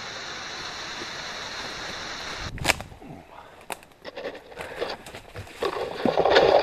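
A steady rushing noise, like wind on the microphone, then a sudden break; after it, dry branches and scrub crackling and scraping as a hiker pushes through dense bush on foot, louder near the end.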